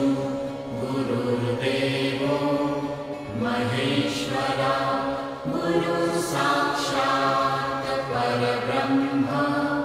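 Devotional chanting as background music: a voice singing a Sanskrit verse in long-held notes over a steady low drone.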